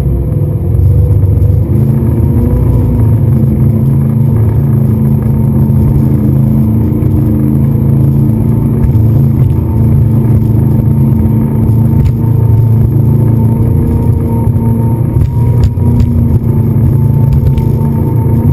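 A speedboat's engine running steadily at speed.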